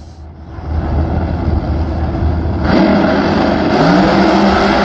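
Two no-prep drag race cars launching and running down the strip at full throttle. A low engine rumble builds, then jumps to a loud blare of engines about three seconds in, with one engine's pitch rising shortly after.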